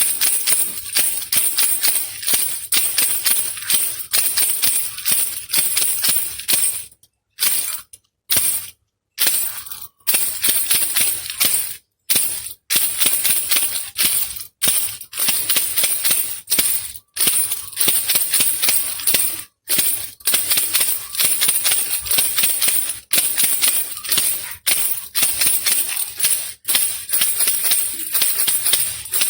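Handheld baby rattle (khulkhula) shaken in quick, steady rhythmic strokes, a bright rattling of beads in a hollow body, with a few short breaks about a quarter of the way in.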